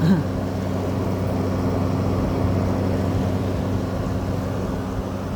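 GE 6,000 BTU window air conditioner running with its compressor off: a steady hum with a rush of air. The unit's coil has iced up, which the owner puts down to an overcharge.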